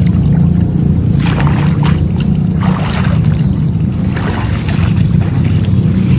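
Shallow river water sloshing and splashing around wading legs and a dragged mass of cut grass, short splashes every second or so over a steady low rush of water.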